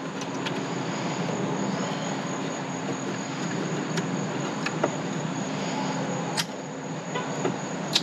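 A plastic rocker switch being handled and clipped into a dash switch panel: a few light clicks and taps, the sharpest about six and a half seconds in, over a steady background hiss.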